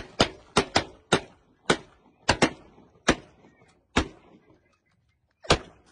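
Shotguns firing a rapid, uneven volley of about eleven shots at flushing waterfowl, several only a fraction of a second apart, with a pause before a last shot near the end.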